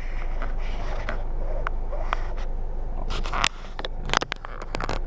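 Handling noise: a scattering of sharp clicks and light scrapes over a steady low hum, the clicks coming thicker in the second half. The hum drops away about three and a half seconds in.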